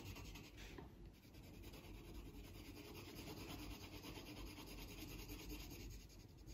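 Colored pencil rubbing across paper in shading strokes, faint.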